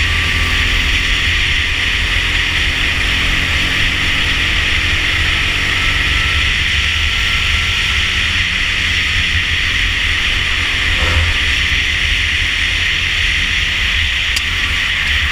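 Rental kart engine running at speed through the corners, heard from an onboard camera. A steady low rumble and hiss run under it.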